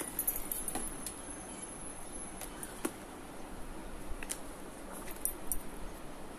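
Quiet handling of a handbag and its cardboard tag: faint rustling with a handful of short, light clicks and taps, like its metal fittings knocking.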